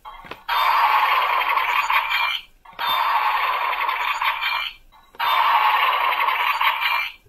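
DX Dark Z Riser toy's built-in speaker playing a dense electronic alert sound three times, about two seconds each with short breaks between. It is the riser answering each Access Card that does not work with it.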